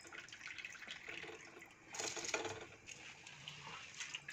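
Faint splashing and bubbling of boiling water in a pressure cooker as soaked rice is tipped in, a little louder about two seconds in.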